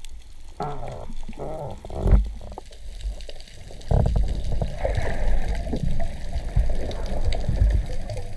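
Water heard through an underwater action camera's housing as a freediver swims up: muffled burbling at first, then much louder rumbling, churning water from about four seconds in as he nears the surface.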